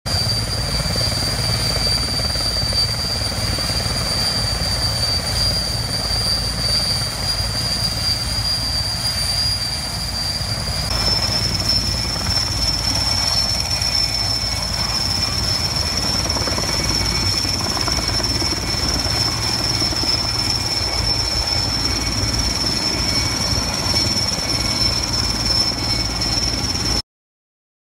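Sikorsky S-64 Skycrane heavy-lift helicopter running and lifting off: a steady high turbine whine over the low rumble of the rotor. The whine steps up slightly in pitch about eleven seconds in. The sound cuts off suddenly near the end.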